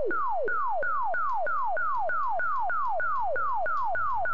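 Synthesized laser-gun sound effect from augmented-reality arm cannons firing in rapid succession: a quick falling 'pew' tone about three times a second.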